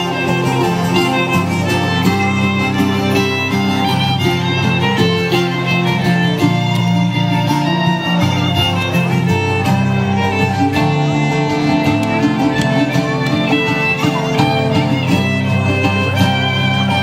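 A squeezebox band playing an instrumental folk tune, with held bass chords that change in steps under a quick melody.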